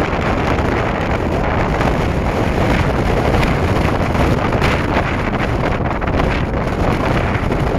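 Wind buffeting the microphone aboard a moving boat: a loud, steady rush, heaviest in the low end, with no let-up.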